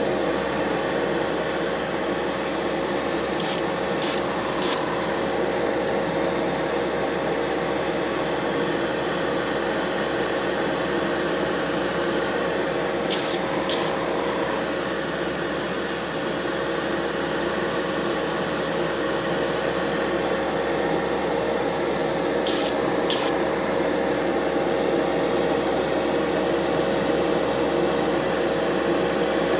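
Short hissing bursts of spray paint on a die-cast toy car's parts: three quick bursts a few seconds in, two around the middle and two more later. A steady hum runs underneath.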